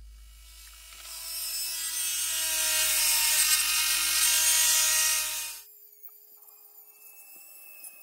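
Dremel rotary tool with a small burr grinding through a clear yellow plastic window insert: a high motor whine with a harsh grinding hiss, building up about a second in, then dropping off sharply a little past halfway to a much fainter whine.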